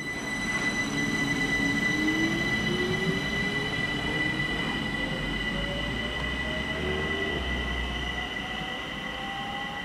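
ÖBB Talent electric multiple unit pulling away, its traction drive giving a whine that rises steadily in pitch as it accelerates, over a low rumble and steady high tones, the whole growing fainter as it moves off.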